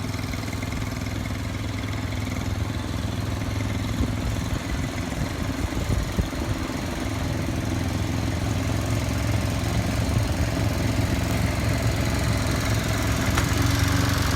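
Snow blower's small engine running steadily, a rough low hum that grows a little louder toward the end.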